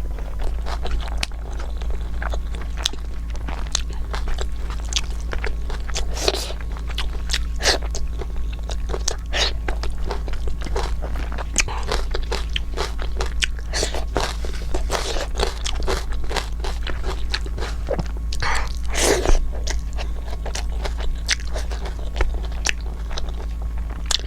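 A person chewing and crunching food close to the microphone, with frequent small crisp crunches and mouth clicks, over a steady low hum.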